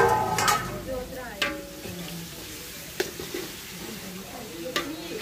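A metal ladle stirring chopped onions and green chillies in a large aluminium cooking pot. It scrapes through the onions and knocks sharply against the pot a few times, over the sizzle of the onions frying in oil.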